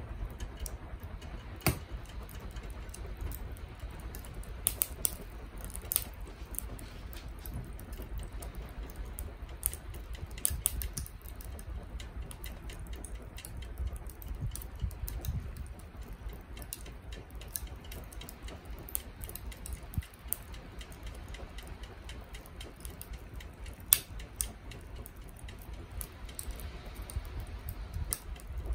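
Binchotan charcoal crackling as it heats and catches: irregular sharp pops and ticks, a few louder than the rest, over a low steady rumble.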